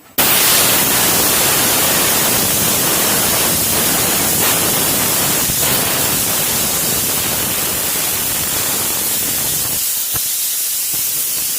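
Compressed air hissing out of a pressurized air-compressor tank, let out through a big screw fitted in place of a release valve. The hiss starts suddenly and stays loud and steady.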